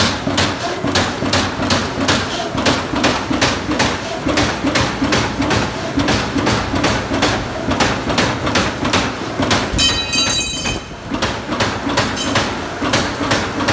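Amada Pega 357 CNC turret punch press cycling its ram, a steady run of sharp mechanical hits at about three a second. About ten seconds in, a brief high-pitched whine sounds through the hits.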